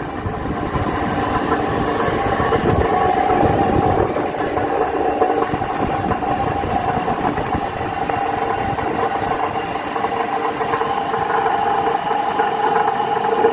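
Industrial gear reducer (speed-reducing gearbox) running with a steady whine of several tones over a rough, rattling grind. This is an abnormal noise, a sign of a fault inside the gearbox.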